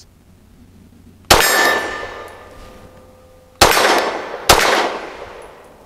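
Three 9mm pistol shots from a Caracal Enhanced F, the first alone and the last two about a second apart, each with a long echoing tail. The first shot is followed by a steel target ringing; the last two were misses.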